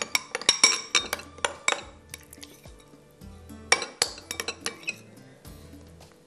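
Metal spoon clinking against glass mugs and bowls: a quick run of clinks over the first two seconds and another cluster near the middle, over soft background music.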